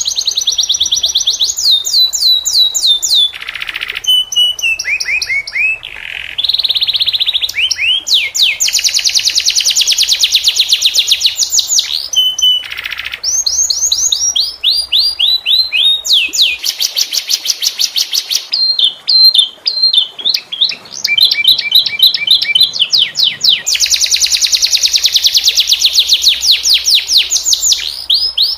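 Domestic canary singing a long, unbroken song of rapid high-pitched trills (rolls), fast runs of repeated notes that change pattern every second or two, with a short harsh buzzy note twice.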